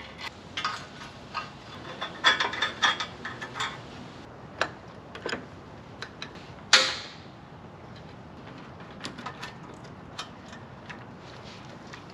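Metal hand tools clicking and clinking on a riding mower's engine as it is being taken apart, with a cluster of quick ratchet-like clicks early on and one louder metallic clank about seven seconds in.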